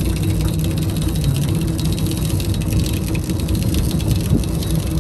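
Charter fishing boat's engine idling with a steady low drone, with a fine crackling hiss above it throughout.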